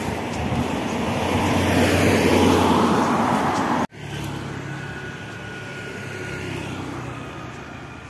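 Road traffic. A vehicle passes close by, growing louder to a peak about two and a half seconds in, and is cut off suddenly. Then comes the steadier, quieter engine hum of approaching traffic, a motorcycle among it.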